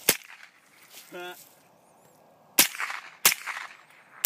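Smith & Wesson M&P 15-22 semi-automatic .22 LR rifle firing four sharp shots, each with a short echo: one just after the start, two about two-thirds of a second apart about two and a half seconds in, and one at the very end.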